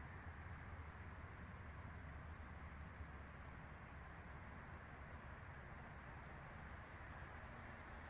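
Quiet woodland ambience: a steady low hiss and hum with faint, distant bird chirps, a short run of small high peeps through the middle.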